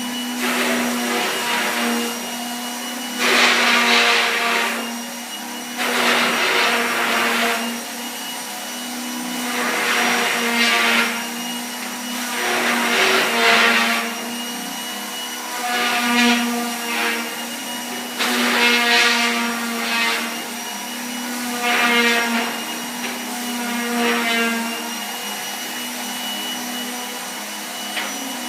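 Electric power sander running on wood with a steady motor whine. Its rasp surges louder about every three seconds as it is pressed into and moved across the board.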